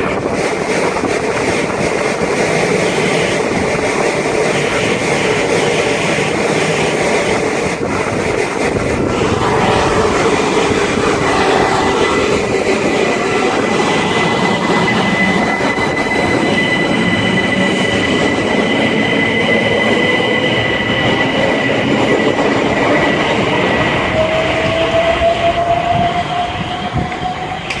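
Train running past close by: a loud, steady rumble of wheels on the rails with a thin high-pitched whine. A lower whine dips and then climbs in pitch near the end, just before the noise falls away.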